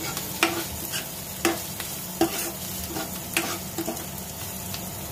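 Chopped onion, carrot and capsicum sizzling in a little hot oil in a kadhai while a spatula stirs them, scraping across the pan about once a second. The vegetables are being sautéd on medium heat.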